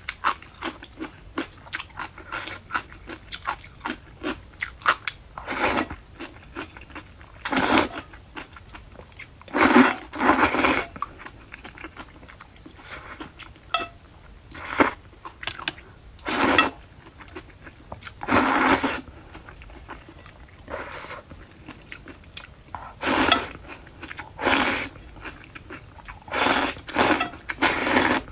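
Close-up eating: a person bites and chews crisp sour-spicy pickled radish, with a run of small clicks at first, then a dozen or so louder crunching bites spread through the rest.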